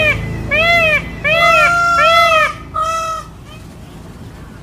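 Peacock calling: a quick run of about five loud, short calls, each rising and then falling in pitch, the middle ones overlapping. The calls stop a little over three seconds in.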